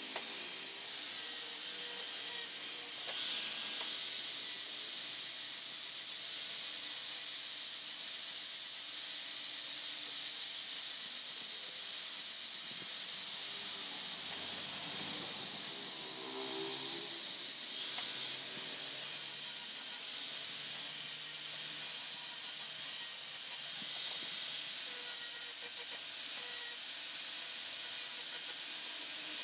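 Electric angle grinder running with an abrasive disc, grinding rust off small hand-held steel scale parts: a steady, even hiss that does not let up.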